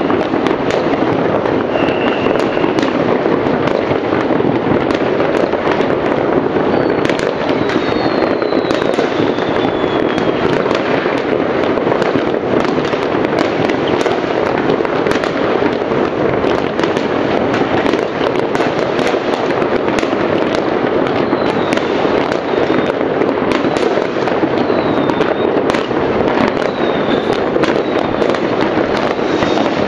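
Many fireworks and firecrackers going off at once across a city, merging into a continuous din of bangs and crackles, with a few short falling whistles.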